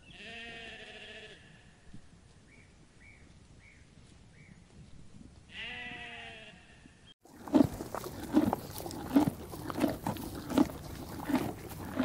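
Sheep bleating twice, several seconds apart. A little past halfway the sound switches suddenly to a louder, regular series of short sounds, about three every two seconds.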